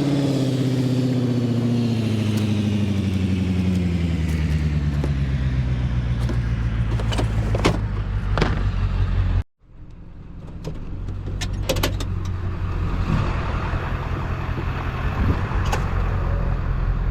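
Motor vehicle engine running. Its pitch falls over the first few seconds as the revs drop, then it settles to a steady hum. The sound cuts out abruptly about nine and a half seconds in and picks up again, with a few light clicks and rattles.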